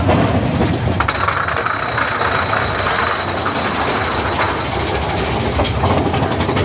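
Big Thunder Mountain Railroad mine-train roller coaster running along its track: a steady rattling rumble of the wheels on the rails. A thin high whine comes in about a second in and fades out past the middle.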